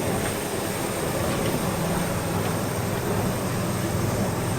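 Steady airliner cabin noise after landing: an even rush of engine and air noise with a low hum.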